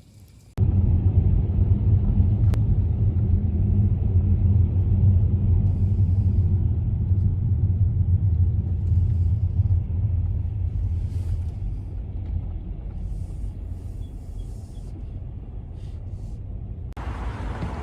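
A steady, loud low rumble that starts suddenly about half a second in and eases slightly toward the end.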